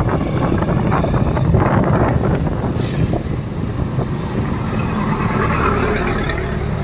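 Wind rushing over the microphone of a moving motorcycle, with its engine running at road speed and road traffic around it. A truck passes close alongside near the end.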